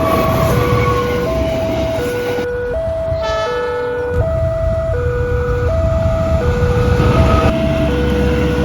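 Railway level-crossing warning alarm sounding two alternating tones, each held under a second, as a train approaches, over a steady low engine rumble. A brief higher, many-toned blast sounds about three seconds in.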